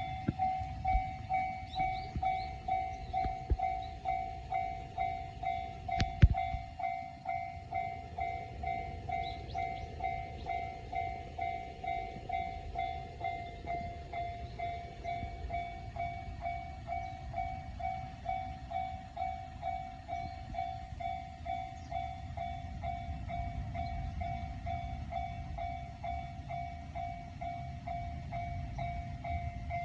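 Japanese level-crossing warning bell ringing steadily, about two dings a second, while a train rumbles low through the crossing. A sharp knock sounds about 6 seconds in.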